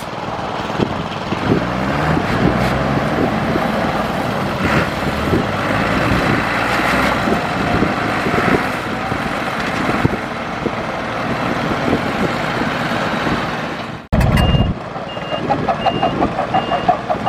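Diesel engine of heavy earthmoving machinery running and labouring. After a sudden cut about fourteen seconds in, a reversing alarm beeps about twice a second over the engine.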